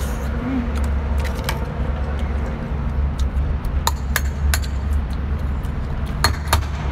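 Chewing and small mouth clicks over a steady low rumble, the clicks coming more often near the end.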